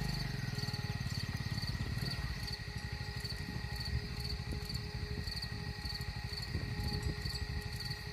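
Insects chirping in a steady high-pitched pulse about twice a second, over a low rumble.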